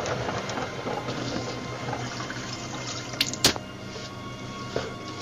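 Water sloshing and splashing from a mop worked in a bucket of water, with two sharp knocks about three seconds in, over soft background music.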